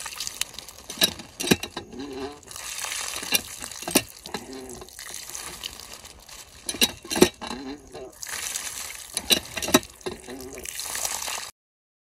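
Water running from a pipe outlet and splashing into a puddle, with wet slaps and splashes as hands rinse dressed dove meat under the stream. The sound cuts off suddenly near the end.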